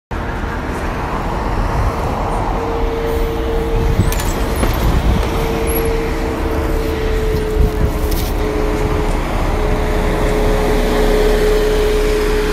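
Double-decker city bus engine running close by, a steady hum over road traffic noise.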